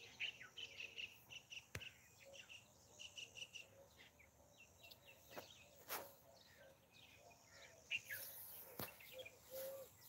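Faint birds chirping in short, repeated calls, with a few soft clicks.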